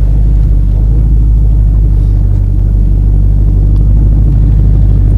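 Boat engine running steadily, a loud low drone.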